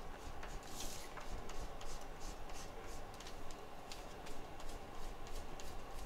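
Light, irregular scratching strokes, two or three a second, from hand work at the bench, over a steady low hum.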